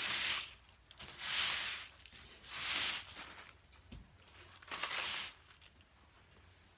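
Dry rustling of a moss-covered figure, fir greenery and white coconut fibre being handled: four swishes, each under a second long, with a soft low knock about four seconds in.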